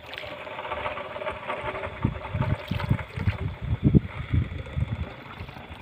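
Hand paddle stroking through lake water beside a small boat, splashing and trickling off the blade, with irregular low thumps.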